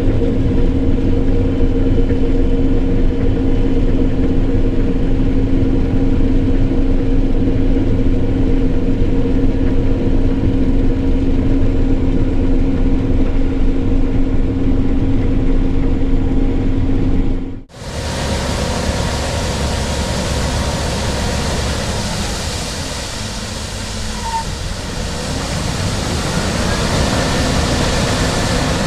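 Case IH Axial-Flow combine harvester running steadily while harvesting corn, a constant hum with a held tone. About two-thirds of the way through it cuts sharply to a noisier, brighter running sound of the combine that fades a little and then swells again.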